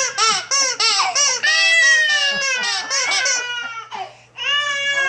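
A young child squealing and shrieking in high-pitched bursts: quick short squeals, a long falling squeal about a second and a half in, more short squeals, then another long squeal near the end.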